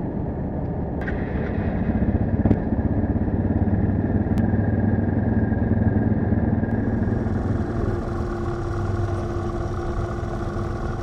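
Yamaha TW125's single-cylinder four-stroke engine, fitted with an Akrapovic exhaust, idling steadily, with a few light clicks. A higher tone joins the engine sound about two thirds of the way in.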